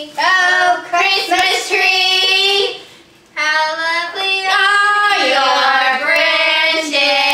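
A voice singing, made high and thin by breathing helium, in two long held phrases with a short break about three seconds in.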